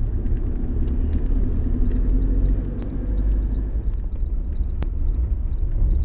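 Car driving, heard from inside the cabin: a steady low rumble of engine and road noise, with two faint sharp clicks about three and five seconds in.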